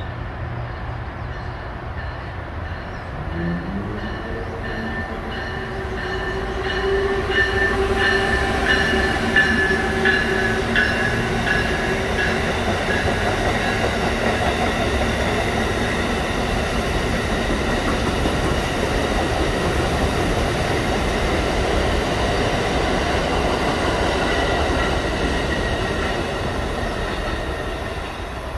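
Amtrak passenger train of stainless-steel Amfleet cars passing on a nearby track. A steady electric whine rises in pitch a few seconds in as the locomotive nears, then comes a quick run of wheel clicks over rail joints and the steady rush of the cars going by.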